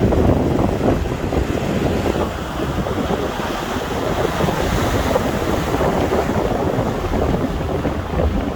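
Strong sea wind buffeting the microphone with a low rumble, over rough waves crashing and washing on the shore.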